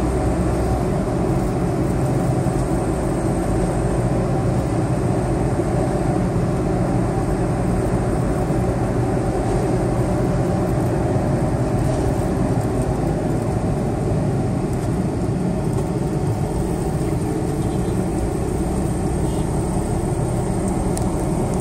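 Steady driving noise heard inside a moving taxi's cabin.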